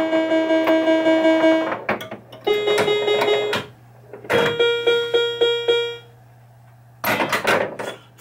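Bally Fireball Home Edition pinball machine's electronic sound effects during play: a held electronic tone, a shorter one, then one note beeping rapidly about six times. Near the end comes a short clatter of the ball and playfield mechanisms.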